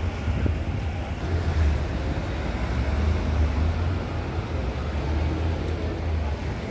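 Street ambience: an uneven low rumble of wind buffeting the microphone over the hum of road traffic.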